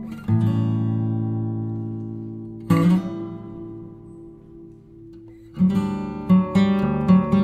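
Background music on acoustic guitar. Two strummed chords are each left to ring and fade, the second about two and a half seconds after the first, then a quicker strummed pattern starts about two-thirds of the way in.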